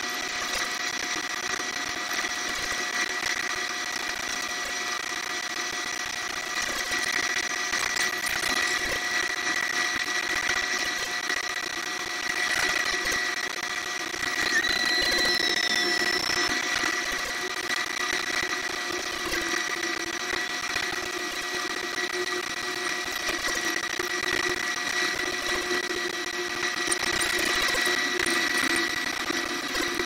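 Combine harvester running while cutting corn, heard from inside the cab: a steady mechanical hum with several high, steady whines. A short gliding tone sounds about halfway.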